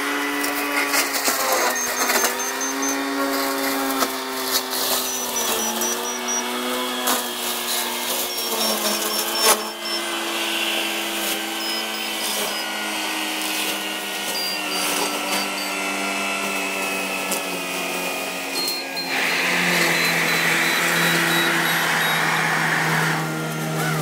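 CAT compact track loader running an Alpha Wolf XP heavy-duty brush cutter, mulching brush and small trees: a steady machine whine that steps down in pitch a few times, with many short sharp cracks of wood being cut. About three quarters of the way through the sound grows louder and hissier.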